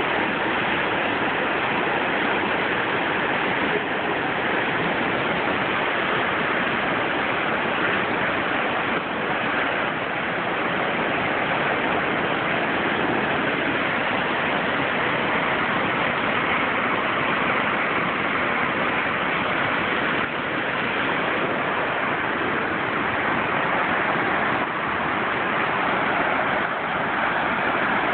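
Flood-swollen stream rushing past in a steady torrent of churning white water, a constant loud rush of water that does not change.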